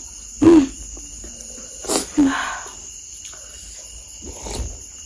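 Crickets chirping in a steady high-pitched drone, with a few brief louder sounds from people eating over it: short voiced mouth sounds and smacks, about half a second in, around two seconds in and again near the end.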